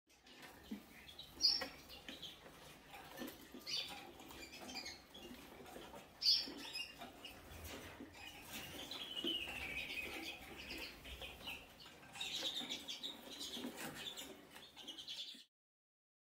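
Young mealy (common) redpolls in show cages hopping and fluttering about: wings flapping and light knocks and taps on perches and cage, two sharper knocks about 1.5 and 6 seconds in. A drawn-out falling call comes about nine seconds in, and quick high twittering near the end.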